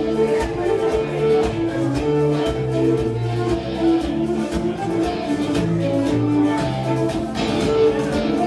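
Live contra dance band playing a tune, with guitar strumming and a steady beat under held melody notes.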